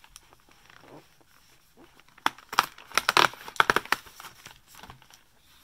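A perforated cardboard advent-calendar door being pried and torn open by hand: a quick run of sharp tearing and clicking in the middle, fainter fumbling on the card either side.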